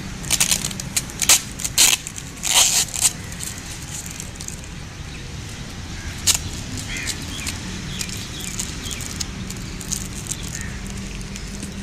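Plastic- and paper-wrapped, taped parcel being handled and picked at by hand, crinkling and crackling. The sharp crackles are loudest in the first three seconds, then fainter rustles follow.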